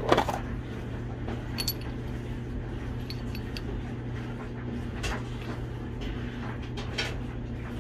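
Small metal engine parts being handled: a few scattered clicks and clinks, the loudest right at the start, over a steady low hum.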